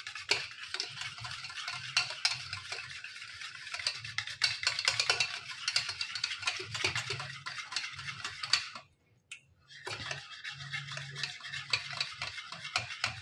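Wire whisk beating a thick curd and gram-flour batter in a stainless steel bowl: a fast, continuous run of scraping and clicking of the wires against the metal, working out the lumps of flour. The whisking stops for about a second partway through, then resumes.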